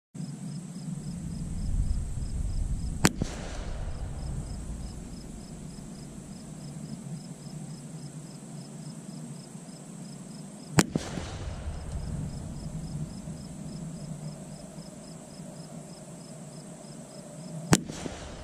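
Three single .22 LR rifle shots, each short and sharp, about seven to eight seconds apart.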